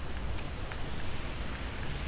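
City street ambience in winter: a steady low rumble with a few faint light ticks scattered through it.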